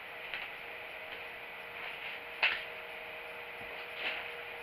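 A few light knocks and clicks over a steady low hum, the sharpest knock about two and a half seconds in.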